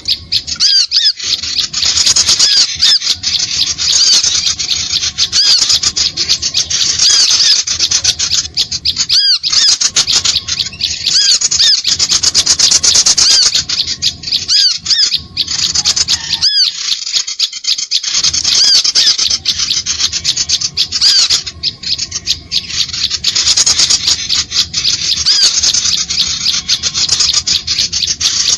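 Dense chattering of many small birds: rapid, overlapping high chirps and short squeaky calls with no pause, a lure recording (suara pikat) meant to draw small birds close.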